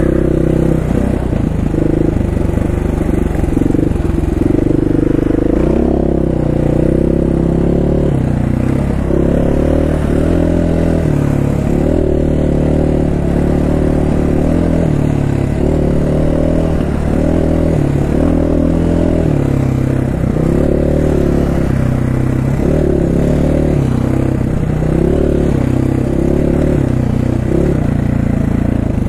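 Dirt bike engine running as the bike is ridden along a rough dirt road, its pitch rising and falling every second or two.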